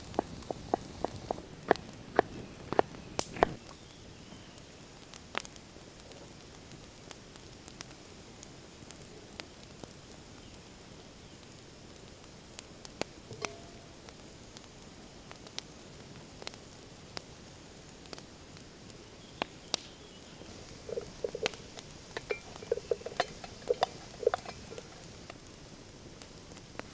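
Kitchen knife chopping a carrot on a wooden cutting board, a quick run of sharp knocks for the first few seconds. Then a campfire crackles with scattered single pops, and a quick cluster of short knocks comes near the end.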